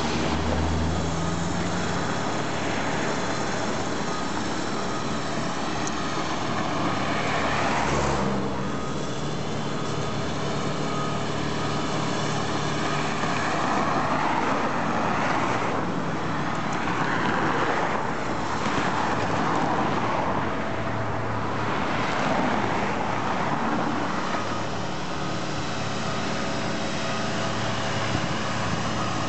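Heavy diesel engines of road-construction machines running, a steady low engine note under a broad mechanical noise that swells and eases off several times.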